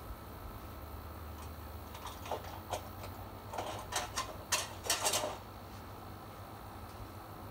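Hand tools clinking and clattering in a quick, uneven run of light clicks, which thickens and is loudest about four to five seconds in, then stops.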